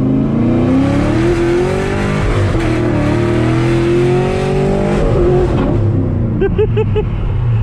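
2010 Camaro SS's 6.2-litre LS3 V8 accelerating through the gears in the cabin: the revs climb, dip near the middle, climb again, then fall away about five seconds in as the throttle closes.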